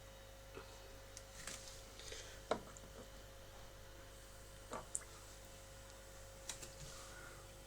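A few scattered sharp drips and clicks of water from a tap, over a faint steady hum.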